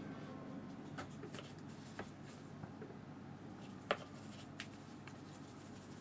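Light scratching of a hake brush working on watercolour paper, with a few small clicks, the sharpest about four seconds in.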